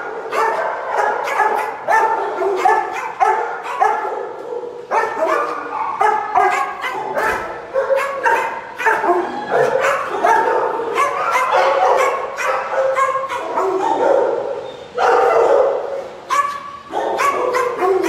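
Many shelter dogs barking and yipping at once in their kennel runs, the barks overlapping without a break.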